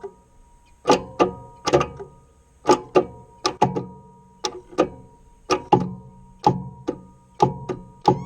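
Background music: plucked guitar-like notes struck in an uneven, roughly half-second rhythm over held tones.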